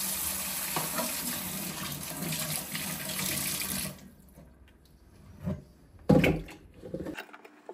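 Kitchen tap running into a stainless-steel sink with a steady rush, shut off about halfway through. After that come a few short knocks and one loud thump, then quieter handling sounds.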